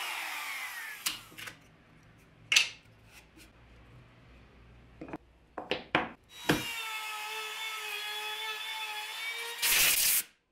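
A handheld router spinning down at the start, its whine falling in pitch, then scattered knocks and clatter as the plywood template and workpiece are handled. The router's steady whine comes back for about three seconds, followed near the end by a short, loud blast of compressed air.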